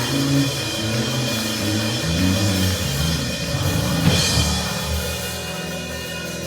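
Church band playing upbeat praise music on drum kit and bass, with a cymbal crash about four seconds in.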